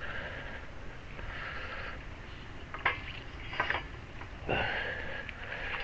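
Handling noise as the weighted hive boxes are slid into the homemade lifter: short stretches of scraping hiss, with a few sharp knocks a little under three seconds in and a heavier thump about four and a half seconds in.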